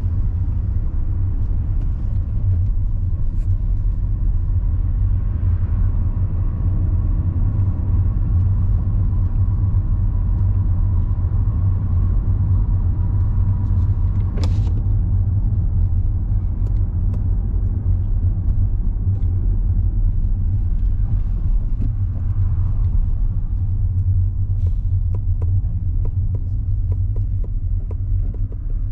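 Steady low rumble of a car's engine and tyres heard from inside the cabin while driving. A sharp click about halfway through and a few small clicks near the end.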